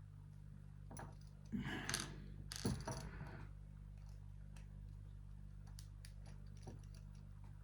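Faint small metallic clicks and taps of padlock pins and parts being handled, with two louder rustling, scraping sounds about one and a half to three seconds in, over a steady low electrical hum.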